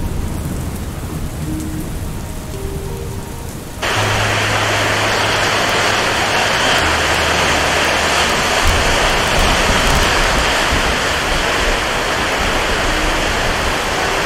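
Steady rain with a low rumble underneath; about four seconds in it cuts abruptly to a much louder, hissing downpour that holds steady.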